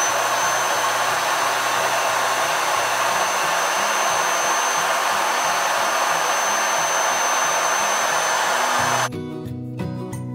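Handheld electric air pump running, a steady rushing blow with a thin high whine, as it inflates a vinyl inflatable chair. It cuts off abruptly about nine seconds in, leaving background music.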